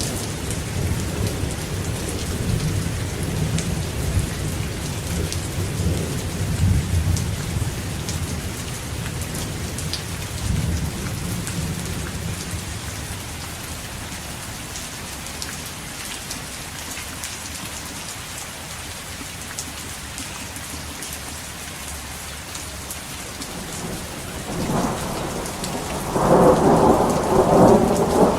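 Thunderstorm: steady rain with rolling thunder. A low rumble runs through the first dozen seconds, then the rain goes on alone, and a louder thunderclap breaks in near the end.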